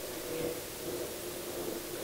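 A steady hum of a few low tones over a constant hiss, from a running motor or appliance.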